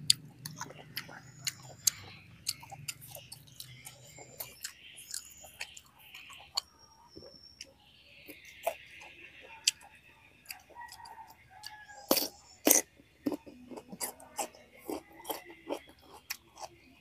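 Close-up chewing of coconut-braised pork intestines, with irregular wet mouth clicks and lip smacks.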